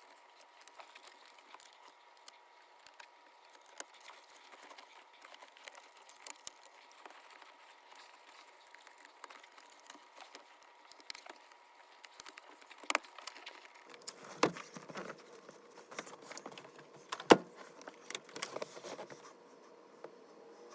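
Scattered light clicks and small rattles, with a few sharper knocks in the second half, from hard objects being handled.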